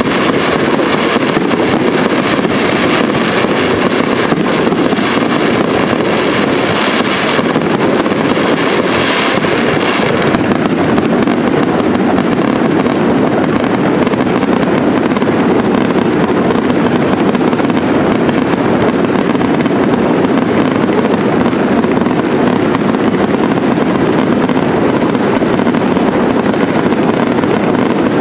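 Aerial fireworks display: a dense, unbroken barrage of shell bursts and crackling, with the sharpest high crackle in roughly the first ten seconds.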